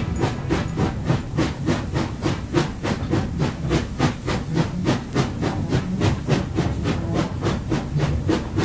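Steam locomotive running, its exhaust chuffing in an even rhythm of about four beats a second over a steady low rumble.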